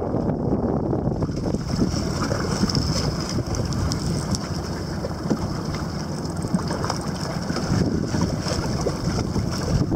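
Wind buffeting the microphone in gusts over small waves lapping against a boat on open water, with a faint steady high whir throughout.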